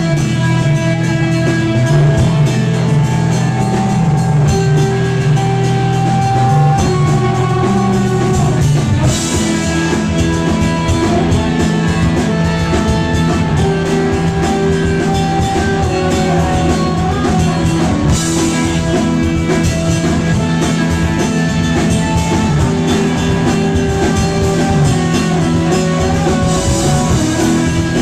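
Live rock band playing loudly with guitar and drum kit. Sustained low notes carry the first part, then the drums come in fuller about nine seconds in, with cymbal crashes then and again about every nine seconds.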